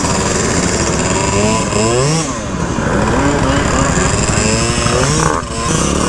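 Two-stroke scooter engines running close by, their pitch rising and falling over and over as the throttles are blipped and the scooters pull away.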